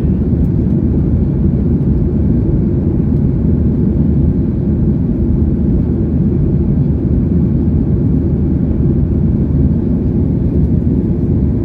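Steady low rumble of a Boeing 737-800's CFM56 jet engines and airflow, heard inside the passenger cabin, holding an even level.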